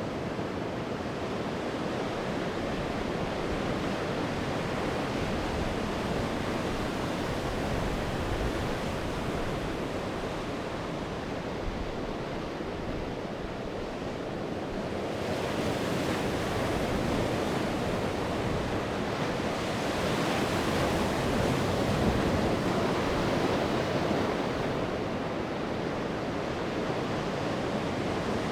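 Sea waves breaking and washing on the shore as a steady surf noise. It swells louder and brighter about halfway through, then eases off near the end.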